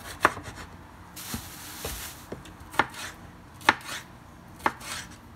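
Kitchen knife slicing a yellow bell pepper on a wooden cutting board: about four sharp knocks of the blade hitting the board, irregularly spaced, with fainter cuts and a short hiss of slicing between them.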